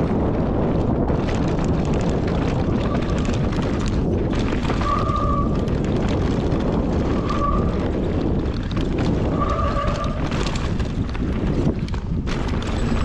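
Heavy wind buffeting on the microphone over the steady rumble of riding fast down a dirt trail. Short squeals come every two to three seconds.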